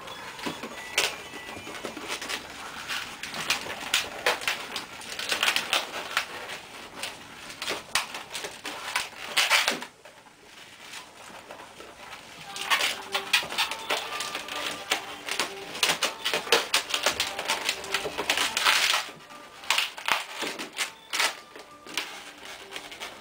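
Long latex modelling balloon being twisted and folded by hand: rapid squeaks, creaks and rubbing of latex on latex in dense flurries, easing off for a couple of seconds about halfway through.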